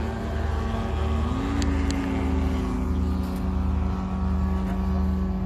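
Model aircraft engine running steadily, its pitch rising slightly about a second in.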